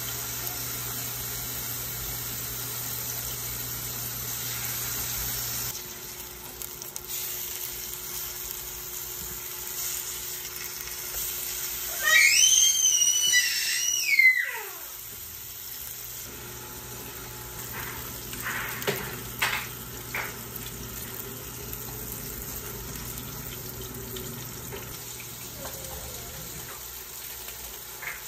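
Salmon fillets sizzling as they fry in oil in a pan. Near the middle comes a loud, high squeal lasting about two seconds that drops away at the end, and a few sharp clicks follow a few seconds later.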